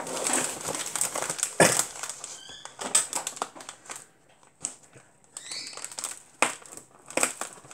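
Packaging wrapping being handled and pulled open by hand: rustling and crinkling with sharp crackles, easing off briefly about four seconds in, then starting again.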